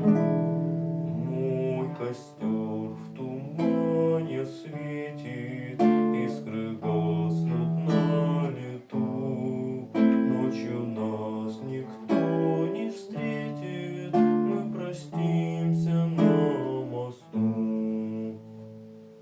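Acoustic guitar playing a slow passage of plucked and strummed chords, a new chord every second or two; the last chord rings out and fades away near the end.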